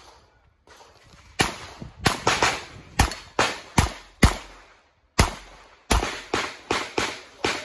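Revolver shots fired in rapid strings: eight shots over about three seconds, a pause of about a second, then six more shots in quick succession, each with a short ring after it.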